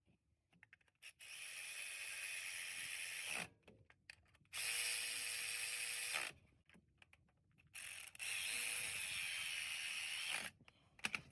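A power tool with a ratcheting mechanism running in three bursts of about two seconds each, with short pauses between them.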